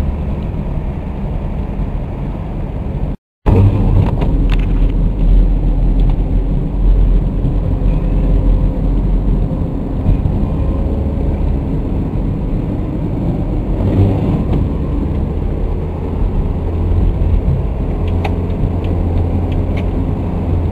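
Car cabin noise while driving on a highway: a steady low rumble of road and engine. The sound cuts out for a moment about three seconds in.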